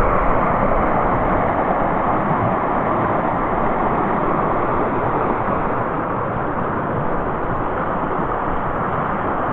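Steady rushing water of a brook, an even hiss and rush that eases slightly over the seconds.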